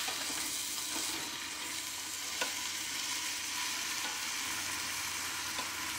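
Browned deer meat sizzling as it is scraped out of a skillet into a hot stainless steel stock pot: a steady hiss, with a couple of light clicks of the utensil against the pan.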